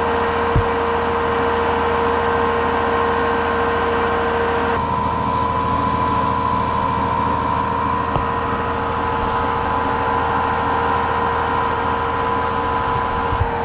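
An engine idling with a steady hum, its tone shifting about five seconds in.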